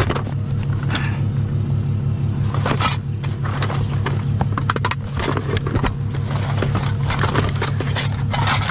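Scrap metal and junk being handled, with irregular clanks, knocks and scrapes over a steady low engine hum.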